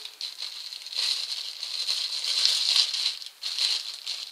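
Packaging crinkling and rustling as items are dug out of a package by hand, loudest from about a second in, with a short pause near the end before it starts again.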